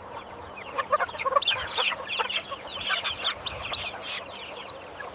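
A flock of chickens clucking and calling over one another, many short overlapping calls, busier from about a second in, over a steady low hum.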